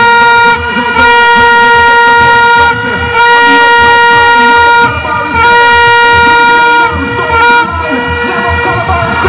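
A fan's horn in the stadium crowd sounding one steady, loud note in repeated long blasts of about a second and a half each, with short breaks between them.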